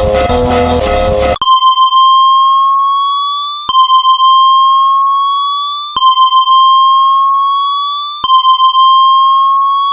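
Electronic music cuts off about a second and a half in and gives way to a synthesized emergency alert alarm. The alarm repeats four times: a quick stutter of beeps, then a long buzzy tone that slowly rises in pitch and fades.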